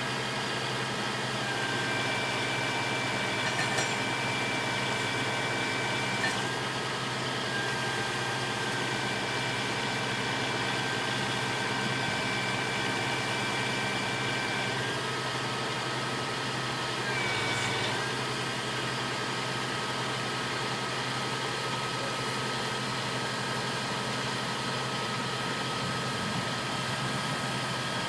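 Heavy truck engine running steadily, with a thin high whine over it that drops in pitch a couple of times.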